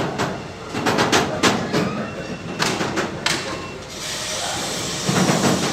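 Container freight train rolling past on intermodal flat wagons, its wheels clattering over the rail joints in irregular clicks and knocks. From about four seconds in a steady hiss of rolling noise takes over.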